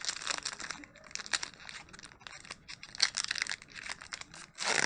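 Foil wrapper of a Pokémon card booster pack being torn open and crinkled, a dense crackling with sharp ticks and louder bursts of tearing.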